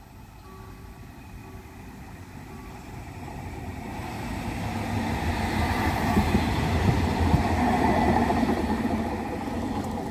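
Articulated electric tram approaching on grassy track and passing close by. Its rolling rumble builds steadily to a peak about six seconds in, then eases a little as it goes past.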